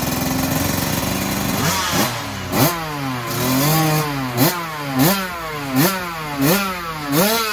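65cc two-stroke motocross bike engine at race speed: a fairly steady note at first, then from about two seconds in the revs climb and cut back sharply over and over, about every two-thirds of a second, as the rider works the throttle and gears.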